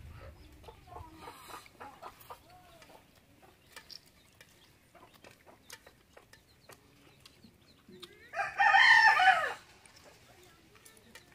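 A rooster crows once, loudly, about eight seconds in, a single call lasting just over a second. Fainter short calls, typical of chickens clucking, come in the first few seconds.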